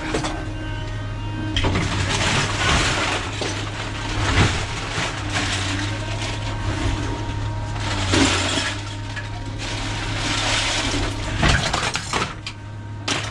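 Scrap metal clattering and crashing as it is thrown onto a scrap pile, with several louder crashes, over a steady low engine hum.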